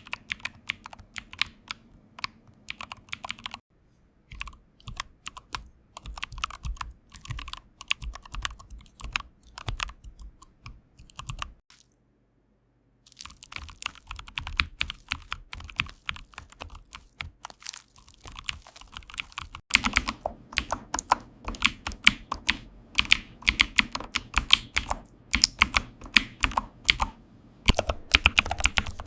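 Fast typing on a computer keyboard: a dense, uneven run of key clicks. There are short breaks about 4 and 12 seconds in, and the clicking turns louder and sharper from about 20 seconds in.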